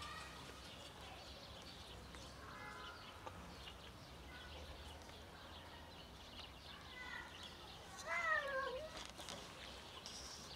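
A cat meows: one clear, drawn-out meow with a falling pitch about eight seconds in, after a few fainter short calls.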